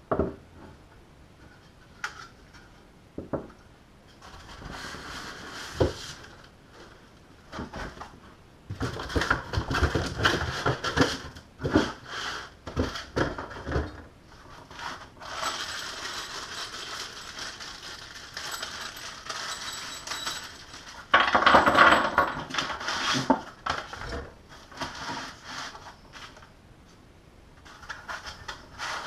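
Metal antenna mounting brackets and hardware being handled, with irregular clinks, knocks and rattles of metal on metal. A longer stretch of continuous rustling runs through the middle, and the loudest clatter comes a little after it.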